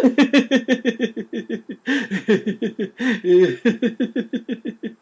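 A man laughing on purpose in a laughter-yoga exercise: a fast unbroken run of short staccato 'ha' pulses, about five or six a second.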